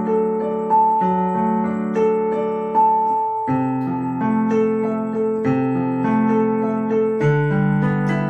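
Piano playing a slow, repeating broken-chord pattern, with the harmony moving to a new chord about three and a half seconds in and again near the end.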